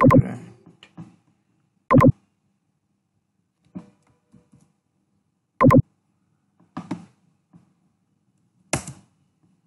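Computer mouse clicks and keyboard taps: four loud, sharp clicks spread over several seconds, with fainter clicks between them.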